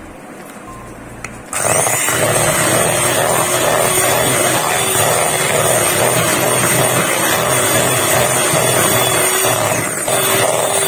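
Electric hand mixer switched on about a second and a half in and running steadily with a motor whine, its beaters whipping cream in a bowl to blend in purple food colouring.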